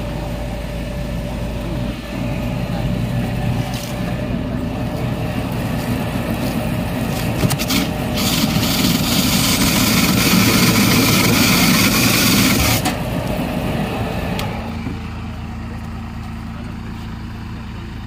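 Mini silage baler running, with a steady low machine hum. It grows louder and rougher for several seconds in the middle, then settles back to the steady hum.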